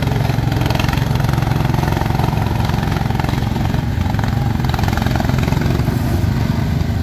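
Garden tractor engine running steadily under load as the tractor churns through a mud hole.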